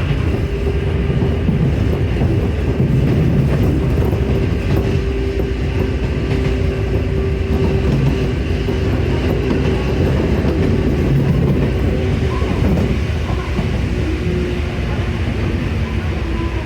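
Electric train running along the line, heard from inside the car: a steady, loud rumble with some clack of the wheels over rail joints, and a held whine from the drive.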